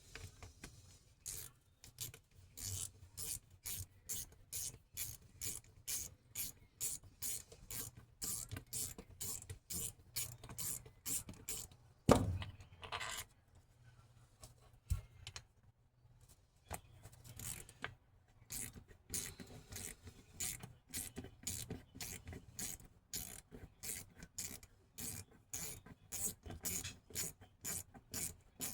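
Socket ratchet worked back and forth in quick strokes, about two to three a second, loosening the bolts on an old starter solenoid. A single sharp knock about twelve seconds in, then a short pause before the ratcheting resumes.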